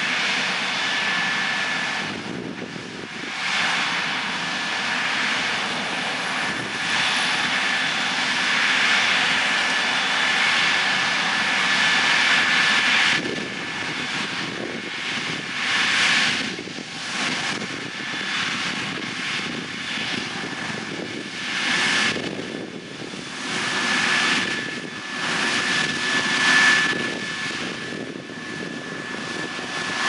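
Case IH combine harvester running under load while harvesting corn: engine and threshing machinery drone with a steady high whine, the rushing noise swelling and fading every few seconds.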